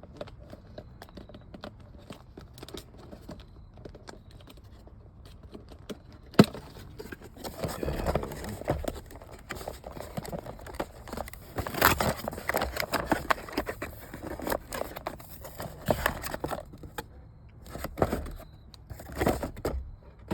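A cardboard shipping box being opened by hand. A single sharp click comes about six seconds in, then a long stretch of irregular rustling, crinkling and tearing of packaging, with a brief pause before more near the end.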